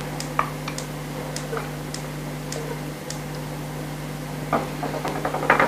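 Wooden spoon lightly ticking against the inside of an enamel pot as butter is stirred in it, about two faint clicks a second over a steady low hum, with a few louder knocks near the end.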